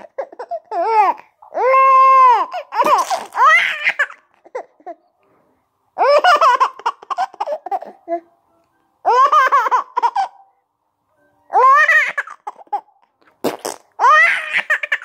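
Baby laughing hysterically in about five high-pitched bouts separated by short pauses, with a long squealing laugh about two seconds in.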